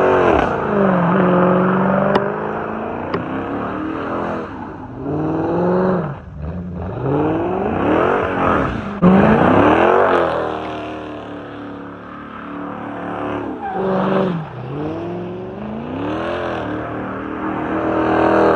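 Dodge Challenger R/T's 5.7-litre Hemi V8 revving hard during a burnout, its pitch climbing and dropping over and over as the rear wheels spin.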